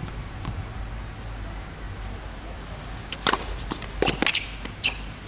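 Tennis ball bounced on a hard court before a serve, a couple of soft thuds, then a sharp racket strike of the serve about three seconds in. Several more racket hits and ball bounces follow quickly within the next two seconds as the point is played out.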